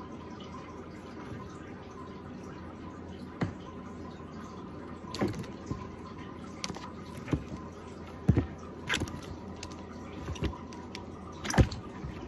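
African bullfrog moving on the wet floor of a plastic tub: a series of about nine short wet slaps and small splashes at uneven intervals, the loudest near the end, over a steady hiss.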